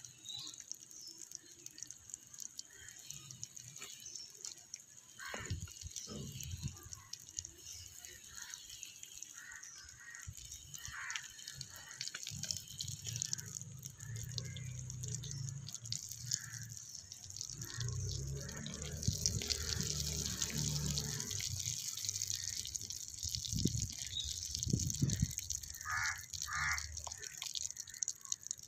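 Oil sizzling and crackling in a tiny clay pot as pieces of fish deep-fry over a small wood fire. A low rumble runs through the middle stretch.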